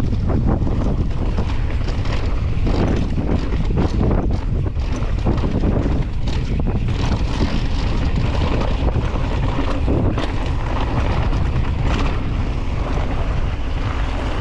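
Wind buffeting the camera microphone as a downhill mountain bike rolls down a dirt trail, with a steady low rumble and frequent small knocks and rattles from the bike over rough ground.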